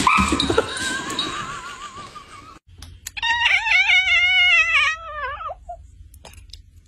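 A loud burst of noise in the first couple of seconds as a dog pounces on a toy, then a domestic cat's long, wavering meow of about two and a half seconds that dips in pitch at the end.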